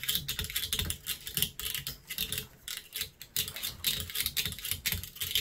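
Quick, irregular light clicking and tapping of a hand tool on the copper windings and steel core of a washer-dryer motor stator, several clicks a second, as the copper is knocked and pulled loose for scrap.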